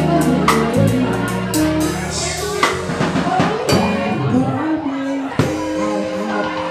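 Live band playing between sung lines: drum kit strikes over held bass notes, with a wavering melodic line coming in from about the middle.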